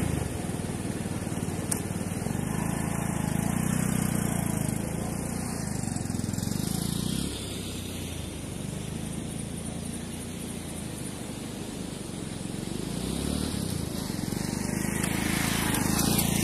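Motorcycle riding away, its engine fading over the first several seconds, then coming back and growing louder again near the end.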